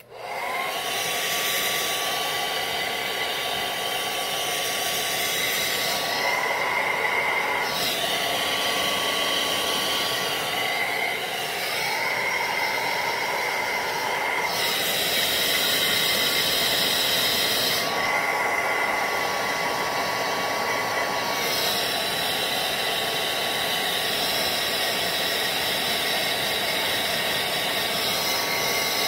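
Handheld hair dryer switched on and blowing steadily to dry lace glue along the hairline, with a thin steady whine over the rush of air. Its hiss shifts every few seconds as it is moved about.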